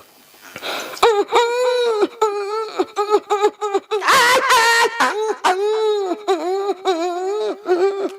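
A man vocally imitating newborn puppies, eyes not yet open, whimpering: a run of short, high whines, with a higher, louder squeal about four seconds in.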